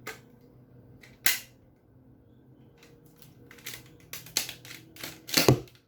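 Plastic clicks and snaps of a toy Nerf blaster being handled, primed and fired with a sticky dart: one sharp snap about a second in, then a quick run of clicks ending in the loudest snap near the end.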